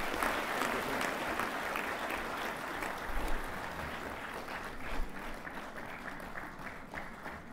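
Audience applauding, an even patter of many hands clapping that slowly dies down toward the end.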